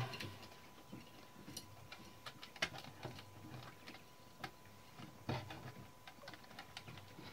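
Scattered light clicks and taps of small metal typewriter key rings being handled and set onto the keys, irregular, with two sharper clicks near the middle.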